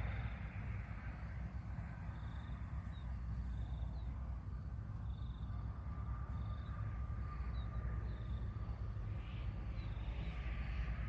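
Outdoor ambience by a pond: a steady low rumble under a constant high whine, with short high chirps repeating about once a second and a faint held tone for a couple of seconds midway.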